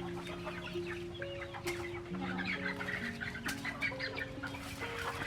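Chickens clucking over slow background music of long held notes.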